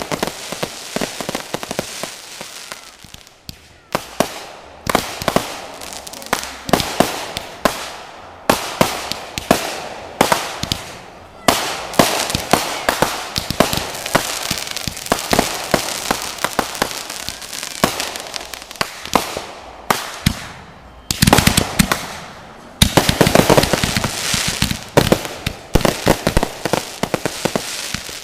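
Fireworks going off in a rapid, continuous barrage: sharp bangs of shell bursts and salutes several times a second over a crackling wash. The bursts grow heavier and lower from about three-quarters of the way through.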